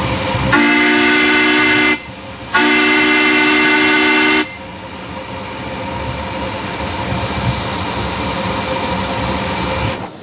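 Steam whistle of a Crown Metal Products 2 ft gauge 4-4-0 live-steam locomotive, sounding two blasts, the second longer, each a chord of several notes: the two-blast signal to proceed as the train sets off. After the whistle, a steady rushing sound from the running locomotive.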